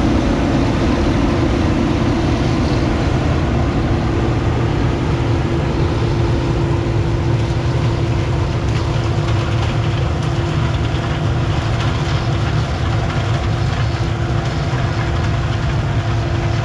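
Gleaner combine running steadily while harvesting corn, heard from inside the machine: a constant engine and threshing drone with a steady hum over a low rumble.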